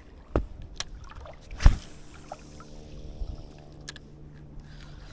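Shallow water sloshing around an angler's legs while wading, with several sharp knocks and clicks, the loudest about a second and a half in, and a faint steady hum from about two seconds in.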